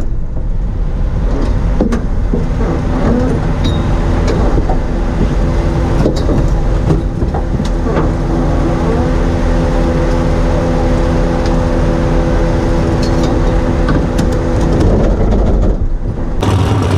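Race car's engine running steadily, heard from inside the smoke-filled cabin as a loud low rumble with scattered knocks and clicks. A steady hum joins it about halfway through and stops shortly before the end.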